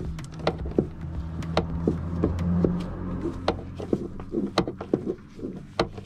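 Small 1/4-inch drive ratchet with a 7 mm socket clicking irregularly, a few clicks a second, as it works a hose clamp loose on the fuel transfer pump fitting. A low steady hum sits underneath, fading in the second half.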